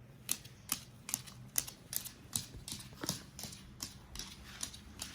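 A blue-and-gold macaw playing, making sharp irregular clicks and taps, about two or three a second, with a brief falling squeak about three seconds in.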